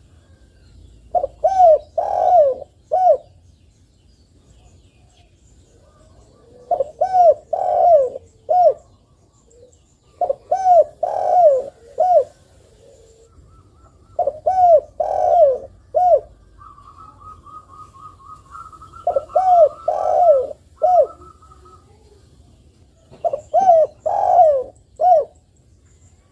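Spotted dove cooing: six short phrases of three or four arched coos each, one every few seconds. A thin, steady higher note runs for about five seconds through the middle, over the fifth phrase.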